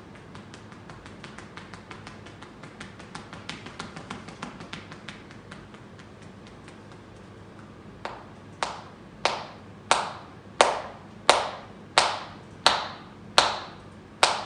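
Hand-percussion massage on a person's shoulders and head: first a fast run of light finger taps that swells and fades, then, from about eight seconds in, about ten loud, sharp hand strikes at an even beat of roughly one and a half a second, each a clap-like pop.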